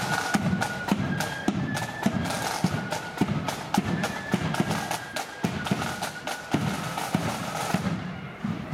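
Marching flute band playing a tune: a high flute melody over regular drum beats.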